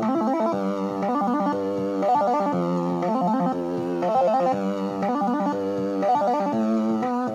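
Oscilloscope music: synthesized stereo tones whose waveforms draw the shapes on an X-Y oscilloscope screen, heard as an electronic tune of stepping pitched notes, some with a wavering pitch.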